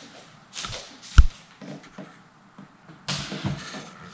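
A coffee table being carried and set down on a hardwood floor. One sharp, heavy thump comes about a second in, with lighter knocks around it, then a cluster of knocks and shuffling about three seconds in.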